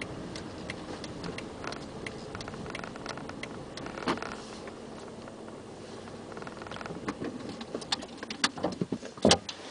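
Car idling steadily just after parking, heard from inside the cabin, with scattered light clicks and taps; a louder knock near the end.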